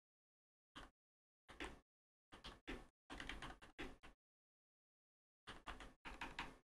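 Computer keyboard typing, quiet, in short clusters of key clicks with silent gaps between.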